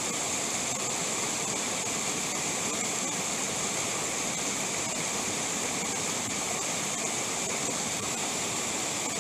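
Mountain stream rushing over and between boulders, a steady, even rush of water.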